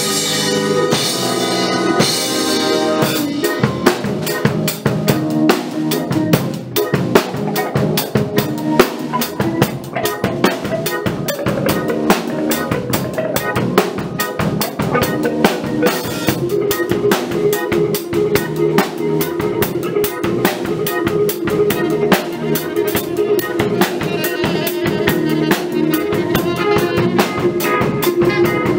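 A rock band playing an instrumental passage right after a count-in: drum kit with snare and bass drum driving a steady beat under electric guitar, bass and electric organ. About halfway through, long held notes come in over the groove.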